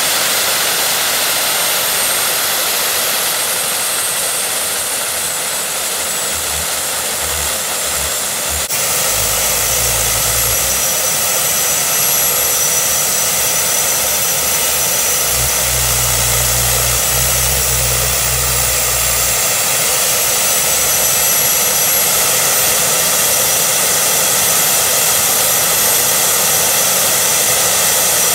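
Homemade jet kart engine with an afterburner running flat out: a loud, continuous rush of jet noise with a high, steady turbine whine. The afterburner is lit at first and goes out partway through while the engine keeps running.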